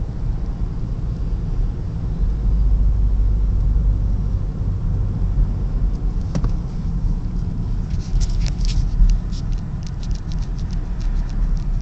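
A car driving, its low road and engine rumble steady throughout. From about eight seconds in comes a quick, uneven run of light clicks, with one sharper click a little before.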